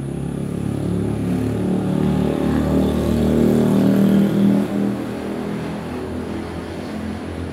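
A motor vehicle's engine passing by, growing louder to a peak about four seconds in, then fading away.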